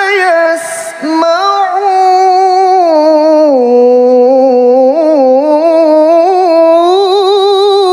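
A man's voice in melodic Quran recitation (tilawah, mujawwad style), drawing out the words of the verse in long, ornamented, wavering notes. He briefly breaks off about half a second in and then sings on in one long phrase.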